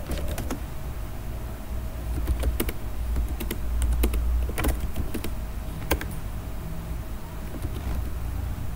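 Computer keyboard keys clicking irregularly as a command is typed, a dozen or so scattered keystrokes over a steady low hum.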